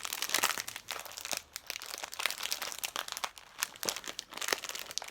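Plastic crisp packet crinkling in irregular crackles as hands struggle to open it.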